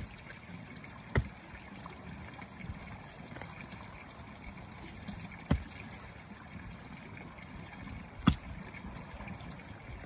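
Garden hoe chopping into grassy soil beside a buried plastic compost bin: four sharp strikes a few seconds apart, the last the loudest, over a steady background rush.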